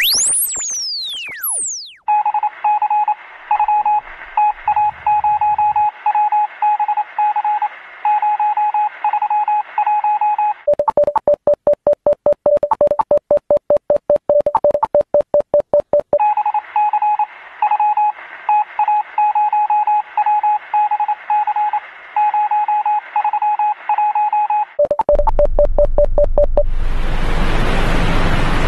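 Telephone line tones: rapid beeping over a phone line, a higher-pitched pulsing pattern alternating with a lower tone pulsed about five times a second, after a few falling electronic sweeps at the start. Near the end the beeps give way to a steady hiss of rain.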